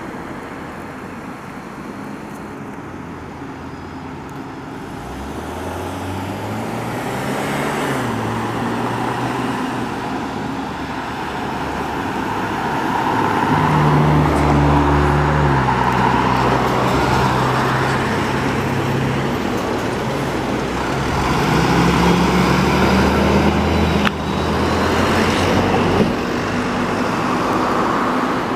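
Fire trucks driving past, their diesel engines climbing in pitch in steps through the gears as they pull away, over tyre and road noise. The engines are loudest about halfway through.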